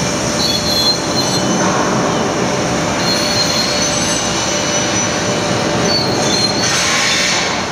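A steady, loud rush of moving air with thin, high squeals coming and going over it, easing off a little near the end.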